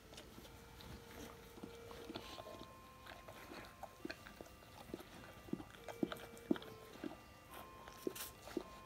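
Rottweiler mother licking her newborn puppy clean: irregular wet licks and mouth clicks, louder in the second half.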